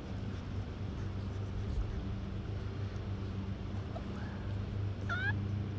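A steady low mechanical hum, with a brief high-pitched puppy whine about five seconds in.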